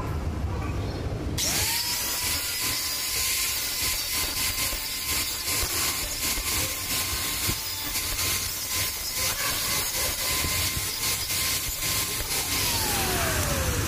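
Handheld angle grinder switched on about a second and a half in, its motor whine rising quickly to a steady pitch while the abrasive disc grinds a small steel part. Near the end it is switched off and the whine falls as the disc spins down.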